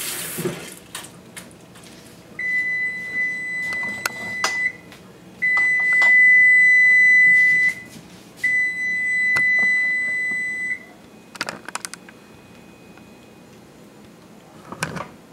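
Electric range's oven control sounding three long beeps of about two seconds each, all at one steady high pitch, with a few light clicks and knocks of handling between them.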